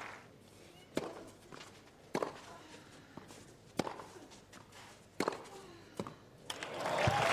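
Tennis rally: the ball struck back and forth with rackets, about half a dozen sharp pops roughly a second and a half apart. Crowd applause swells up near the end as the point is won.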